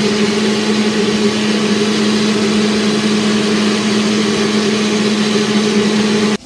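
Electric countertop blender motor running at a steady pitch, blending vegetables and water into a smooth sauce; it stops suddenly near the end.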